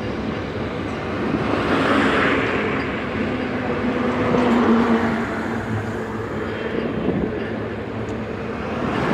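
Steady running rumble of the Dhumketu Express passenger train, heard from an open coach window. A truck engine passes close alongside in the middle, with a held low hum that swells and fades.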